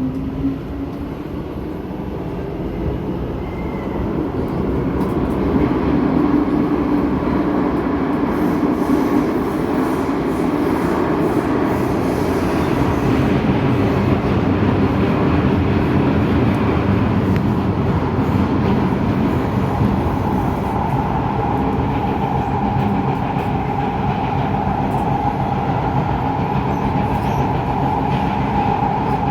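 Kawasaki Nippon Sharyo C751B metro train heard from inside the car: traction motors and wheels on rail, the noise building as the train picks up speed over the first few seconds, then a steady loud run through the tunnel. A steady tone joins in about two-thirds of the way through.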